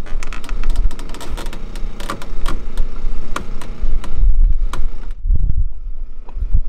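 Irregular clicking and ticking from sailboat deck hardware and rigging at the mast for about five seconds, then thinning out. Low wind buffets the microphone.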